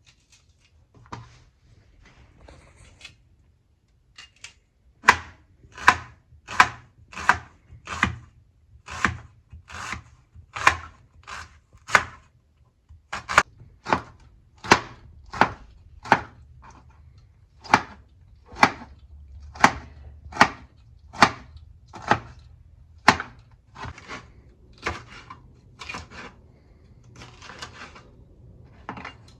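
Kitchen knife chopping vegetables on a cutting board, a few light cuts first and then a steady, unhurried rhythm of sharp knocks, a little more than one a second, as the vegetables are cut into small pieces.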